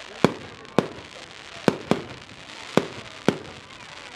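Fireworks display: six sharp firework bangs at uneven intervals, with two coming close together about two seconds in.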